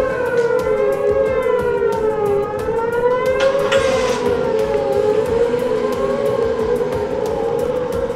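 Outdoor tornado warning sirens sounding, a steady wail that wavers gently in pitch, with more than one siren heard together. A brief rush of noise comes about four seconds in.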